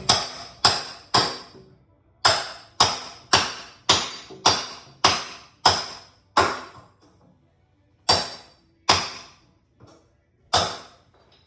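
Hammer striking a steel cat's paw nail puller, driving its claw in under nail heads to pull them: sharp metal-on-metal blows, each with a brief ringing, about two a second in runs of four and eight with pauses between, then a few slower blows near the end.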